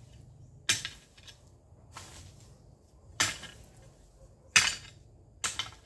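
Garden hoe blade chopping into dry soil and weeds, five sharp strikes about a second apart.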